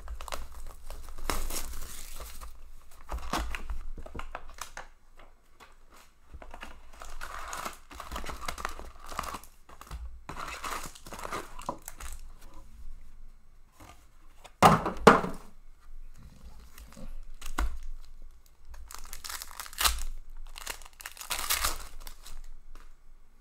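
Foil trading-card pack wrappers being torn open and crinkled by hand, in repeated short rustling bursts. About two-thirds of the way through there is a louder double burst of handling noise.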